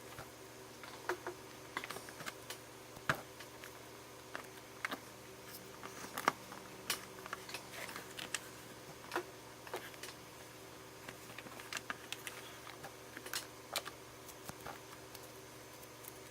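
Irregular light clicks and taps of hands handling plastic Play-Doh set pieces while pressing white Play-Doh into the dome, over a faint steady hum.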